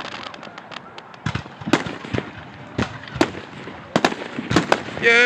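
Aerial fireworks bursting: about eight sharp bangs at irregular intervals over a steady crackling hiss. Just before the end, a loud held musical note cuts in.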